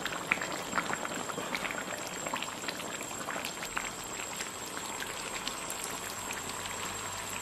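Spicy hot pot broth bubbling steadily in a large steel pot, with scattered small pops.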